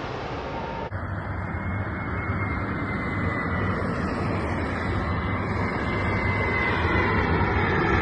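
Landing airliner's engines on final approach: a steady rumble with a faint high whine, growing louder as the plane comes in overhead. The sound shifts abruptly about a second in.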